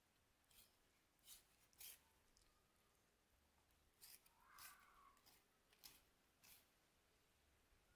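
Faint knife strokes slicing and scraping raw catfish flesh off the backbone, about eight short cuts spaced roughly half a second to a second apart.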